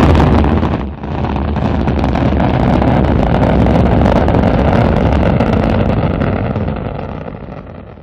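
Rocket motor exhaust noise, a sound effect for a spacecraft's launch abort tower firing. It starts suddenly, dips briefly about a second in, then holds steady and fades out near the end.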